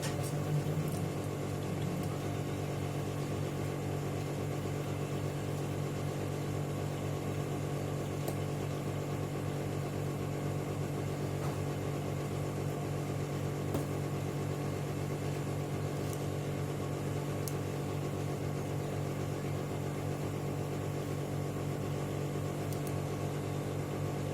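Steady low mechanical hum that holds one pitch throughout, with a few faint light clicks.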